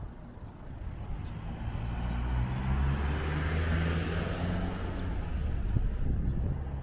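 A car passing close by, its engine hum and tyre noise building to a peak around the middle and then fading away.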